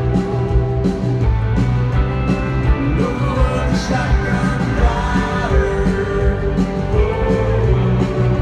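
A live country band playing a song, with a voice singing over it.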